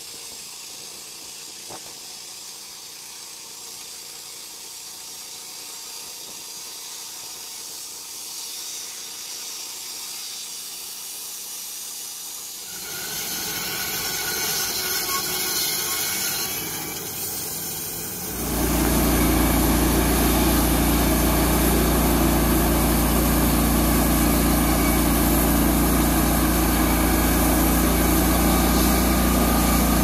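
Portable band sawmills cutting logs, in three takes. The blade runs quietly through a log at first. A louder, hissier cut starts about 13 seconds in, and from about 18 seconds a loud, steady engine drives a larger mill with a strong low hum.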